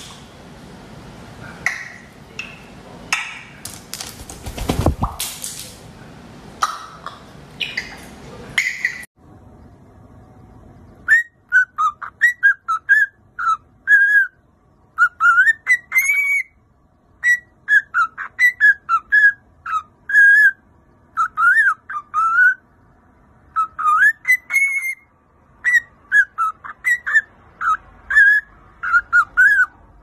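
Cockatiel whistling a tune: quick runs of short, bending whistled notes, with a couple of longer high notes in between. Before the whistling, for about the first nine seconds, there are scattered knocks and rustling.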